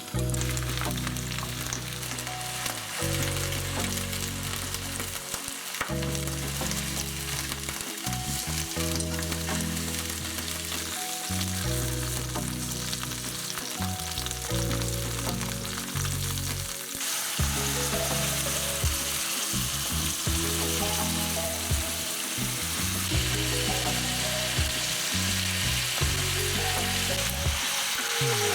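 Food frying in oil in a pan, with a steady sizzle that grows louder about halfway through. Soft background music plays underneath.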